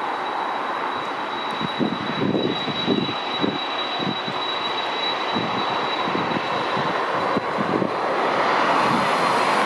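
Boeing 767-300 freighter's twin GE CF6-80C2 turbofan engines running as the jet lines up on the runway: a steady high whine over a broad rush, with uneven low rumbling through the middle. The sound grows louder near the end.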